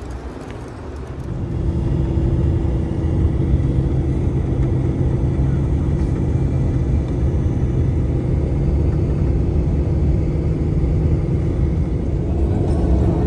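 Car running: a steady low rumble with a steady engine hum, growing louder about a second and a half in and then holding steady.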